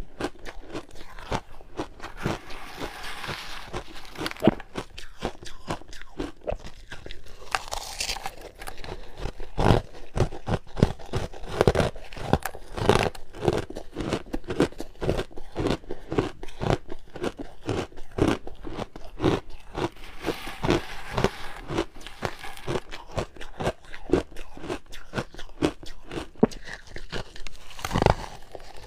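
Close-up crunching of ice being bitten and chewed, a dense run of sharp cracks and crackles with a few louder bites.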